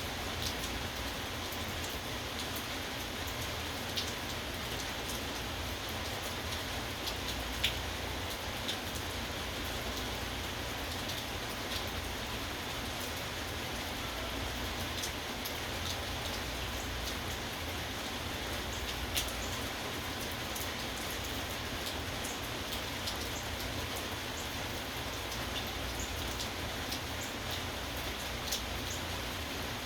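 Steady rain falling, with a few scattered sharp drip ticks standing out over the even hiss.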